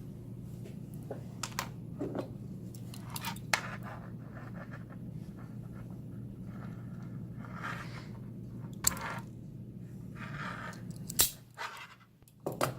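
Wire stripper being worked on a coax cable, cutting and pulling off the dielectric insulation: scattered small clicks and a few short scraping rasps, over a steady low hum.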